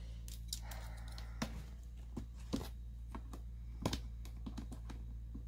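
A cardboard mailer box being handled and turned on a tabletop: a few sharp taps and knocks with a brief rustle, over a steady low hum.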